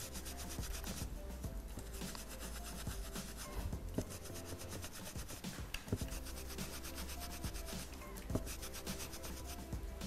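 Stiff dry stencil brush scrubbed in quick circles over burlap, a steady scratchy rubbing, as two paint colours are blended on the cloth. Faint background music underneath.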